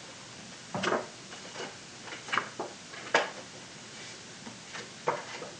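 Stiff paper letter cards being handled and slotted into a card stand: several light taps and rustles spread across a few seconds.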